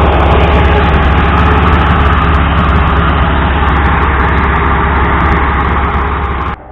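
ZAZ-968M Zaporozhets running on the move, its air-cooled V4 engine giving a loud, steady drone with a deep hum. The sound cuts off suddenly near the end.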